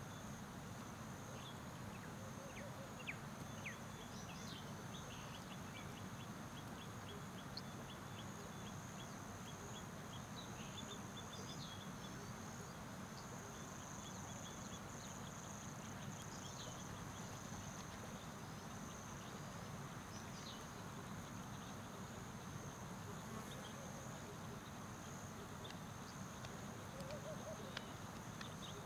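Outdoor nature ambience: a steady high-pitched insect drone over a low hiss, with scattered short bird chirps and a run of quick, evenly spaced ticking calls in the first part.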